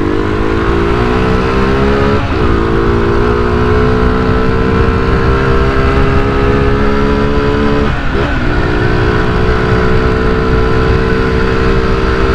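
Honda CG 125i Cargo's single-cylinder four-stroke engine under throttle, its intake growling because the air filter cover and intake hose are off. The revs climb over the first two seconds, then hold steady, with two brief dips in the note about two and eight seconds in.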